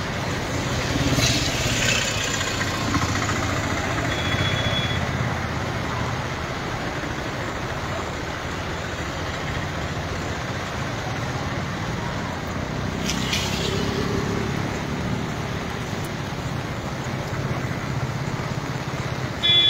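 Steady rush of a swollen, muddy monsoon river in flood, with a short high beep about four seconds in.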